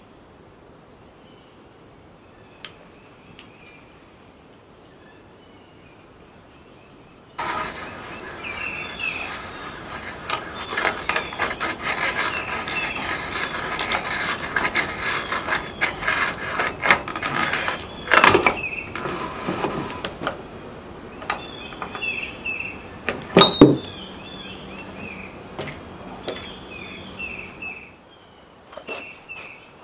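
Hand brace with an auger bit boring into a poplar log: a dense crunching, squeaking cutting sound with many sharp clicks. It starts suddenly about seven seconds in and stops near the end, with one louder knock partway through. Birds chirp faintly in the quiet before it starts.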